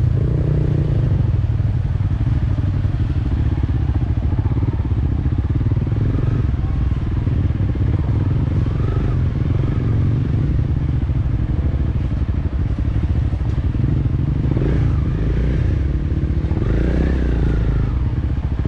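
Motorcycle running steadily while being ridden, a continuous low rumble with no breaks.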